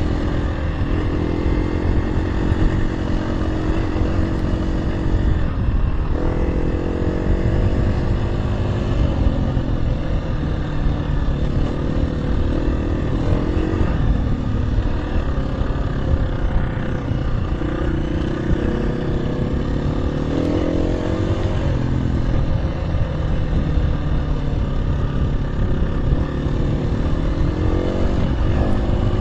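KTM 350 EXC-F dirt bike's single-cylinder four-stroke engine running under way, its revs climbing and easing off several times, over a constant low rumble.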